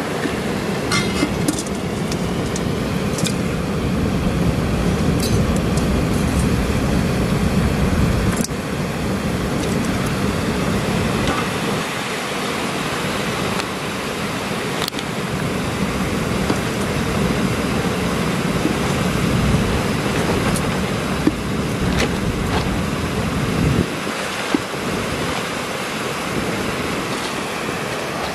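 Steady rush of water pouring over a small weir, with a low wind rumble on the microphone that drops away twice, and a few light clicks and knocks.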